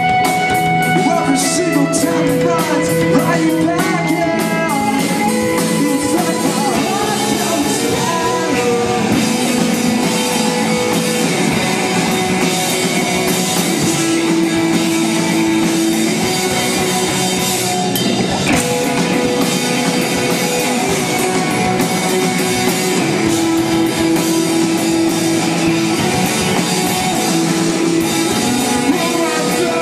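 Rock band playing live: singing over guitar and a drum kit, loud and unbroken.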